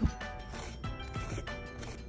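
Soft background music with a few faint clicks.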